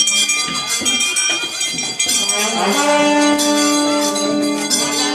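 Metal bells and cymbals ringing and clashing, with a long held low note that comes in about halfway through, amid a crowd.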